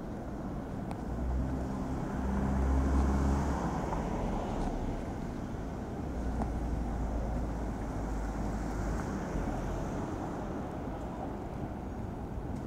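City street traffic: a car passes close by about three seconds in and another around nine seconds, each with a swell of engine rumble and tyre hiss over a steady low traffic hum.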